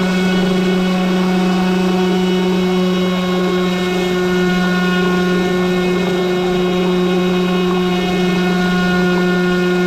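Electric brushless motor and propeller of an RC airboat running at a steady throttle: an even, unchanging hum.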